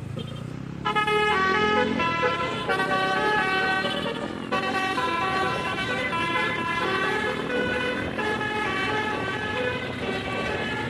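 Telolet musical horn on a Tunggal Jaya bus, playing a tune of held notes that step from pitch to pitch. It starts about a second in and keeps going.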